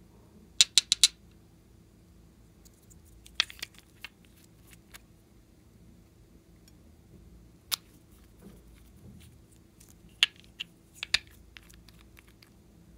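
Small glass nail polish bottles and their caps clicking as they are handled: a quick run of four sharp clicks just under a second in, a few single clicks after that, and another cluster of clicks near the end.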